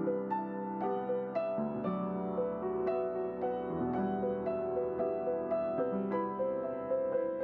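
Soft background music: a piano playing a slow, gentle melody over held chords.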